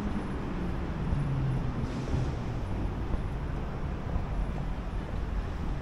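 Road traffic passing: a steady rumble of vehicles, with one engine's drone falling in pitch as it goes by during the first two seconds.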